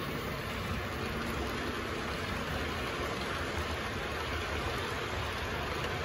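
Model freight train running past, its container wagons rolling along the track with a steady rumble.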